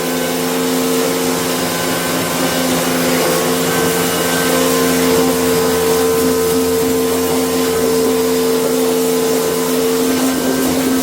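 A cleaning machine's motor running steadily: a constant hum at two fixed pitches with a hiss over it, unchanged throughout.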